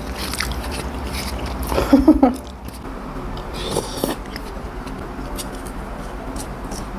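Close-up eating sounds: chewing a mouthful of rice and kimchi stew, with scattered light clicks of chopsticks and a spoon against plastic containers. A short louder mouth sound comes about two seconds in.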